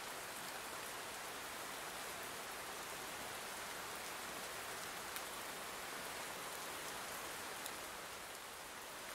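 Steady rain falling: an even hiss with an occasional single drop ticking a little louder.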